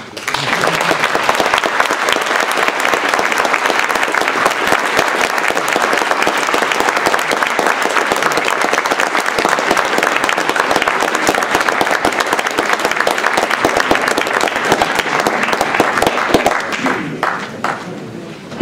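Audience applauding: dense, steady clapping that starts suddenly, then thins to a few scattered claps and stops near the end.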